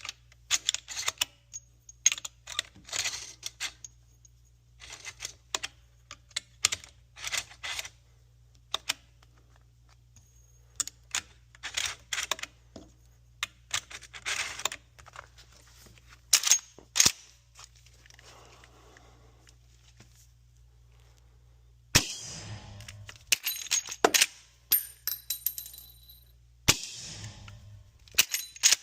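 Marlin 1895 SBL lever-action rifle in 45-70 with a Griffin REV 45 suppressor: many short metallic clicks and clacks of the rifle being handled and loaded, then two suppressed shots of subsonic ammunition about five seconds apart near the end, each followed by more clacking.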